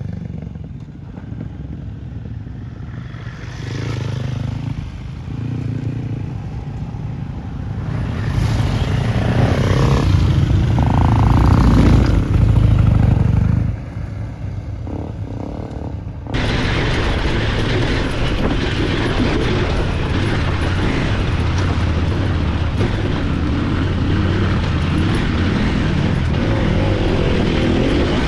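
Off-road motorcycle engine running and revving, getting louder to a peak about halfway through, then dropping. After an abrupt change partway through, a steady, loud mix of engine and wind noise as the motorcycle rides.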